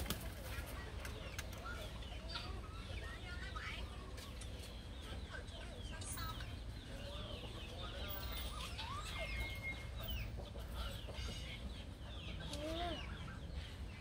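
Birds calling in a yard: many short, overlapping chirps and calls, with a brief steady whistled note about two-thirds of the way through, over a steady low hum.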